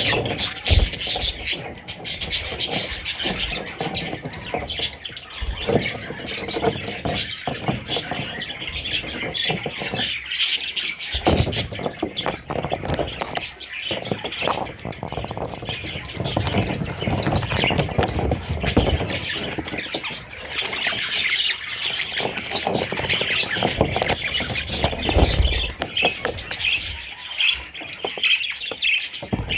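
Budgerigars chirping and warbling continuously, many quick overlapping calls with occasional squawks, with some low rustling noise in the middle.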